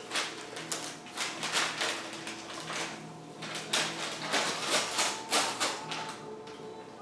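Paper crinkling and rustling in quick, irregular bursts as a sheltie puppy plays with it.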